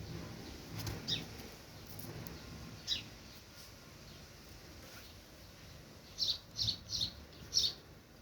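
Domestic cat purring while it eats, a low rumble that fades after the first few seconds. Short high chirps cut through it, with four in quick succession near the end.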